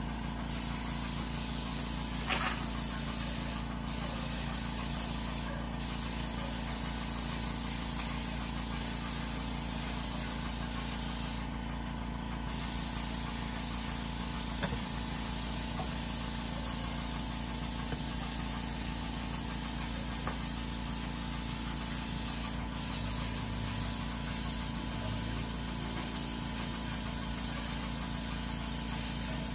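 Compressed-air gravity-feed spray gun hissing steadily as it sprays paint onto a motorcycle engine, with a steady low hum underneath.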